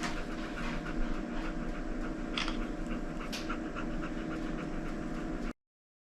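Dog panting steadily in quick, even breaths. It cuts off suddenly about five and a half seconds in.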